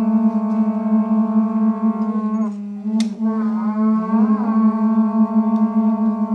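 Horagai conch-shell trumpets blown by yamabushi, a steady overlapping drone with overtones that slides at the ends of breaths. It dips briefly a little over two seconds in, and there is a single sharp click about three seconds in.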